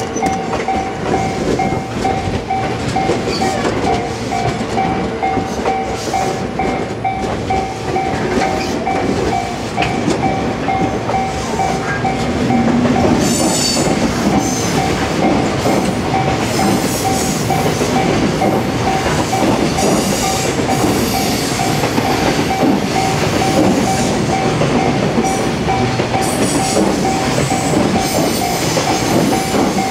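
JR West 227 series 'Red Wing' electric train passing close by, its wheels rumbling and clacking over the rail joints, with bursts of high clicking and light squeal from the second half on. A level-crossing bell rings throughout in a steady, evenly repeating ding.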